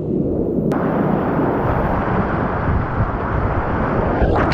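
Rushing whitewater of a big river rapid heard up close from a kayak running it: a loud, steady rush of noise. A sharp click comes about two-thirds of a second in, and after it the rush turns brighter and hissier.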